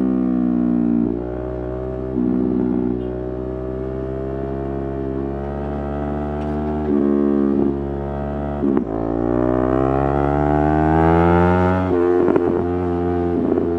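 Yamaha R3's 321 cc parallel-twin engine under way, its pitch dropping and jumping several times as the throttle and gears change, with a long climb in revs from about nine seconds in that breaks off near the end.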